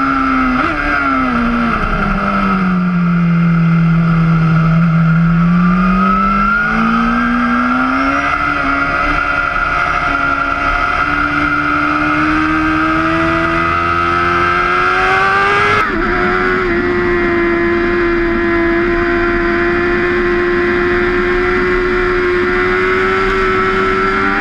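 BMW S1000RR superbike's inline-four engine at speed on track, with wind rush. The engine note falls over the first few seconds as the bike slows, climbs steadily for about ten seconds as it accelerates, drops abruptly once, then holds nearly steady.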